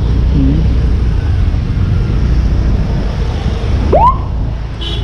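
Steady low rumble of a motorcycle riding in traffic. About four seconds in, a police vehicle's siren gives one short rising whoop.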